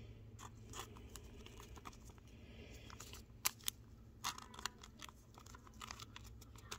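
Faint clicks and rustles of a glossy prizm trading card being handled and turned between the fingers, with a few sharper ticks partway through, over a low steady hum.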